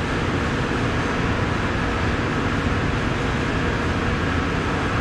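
Steady rumble and hiss of machinery running, with a faint steady hum, unchanging throughout.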